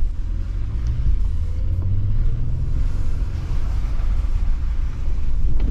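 Inside the cabin of a 2023 Honda Pilot TrailSport driving along a dirt trail: the V6 engine and all-terrain tyres make a steady low sound, the engine note rising slightly about two seconds in.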